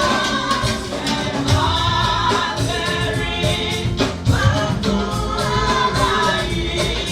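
Congregation singing a gospel hymn as a choir, with drums and bass keeping a steady beat.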